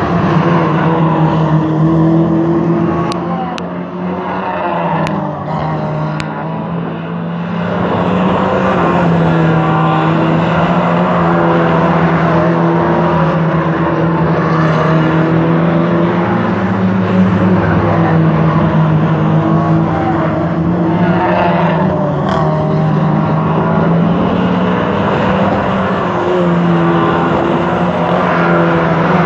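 Lightning Rods race cars lapping a short oval, their engines running hard with the pitch rising and falling as they brake and accelerate through the bends. The engines dip in loudness a few seconds in, then carry on steadily.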